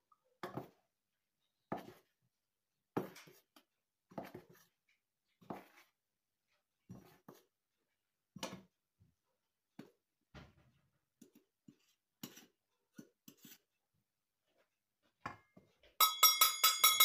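Soft knocks and taps about once a second as flour goes into a stainless steel stand-mixer bowl, then near the end a quick run of loud metallic taps against the bowl that ring out.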